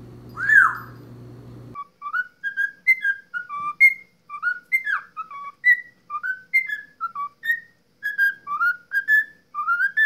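A single rising-then-falling whistle from an African grey parrot, then a cockatiel whistling a tune: a quick run of short, clear notes, about three a second, each sliding up or down in pitch.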